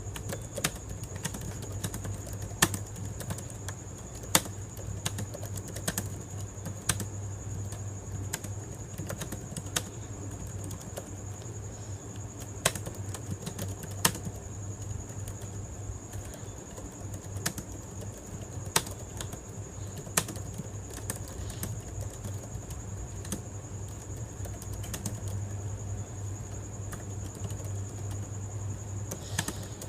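Typing on a computer keyboard: irregular, quick keystrokes with now and then a louder single click. A steady high-pitched whine and a low hum run underneath.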